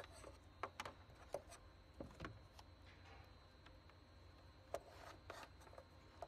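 Near silence broken by a few faint clicks, taps and rubs of hands handling wires, plastic connectors and a plastic switch box against particleboard, over a faint steady hum.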